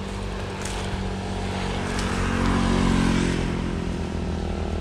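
A motor vehicle's engine passing on the road, its steady hum growing louder to a peak about three seconds in, then easing off.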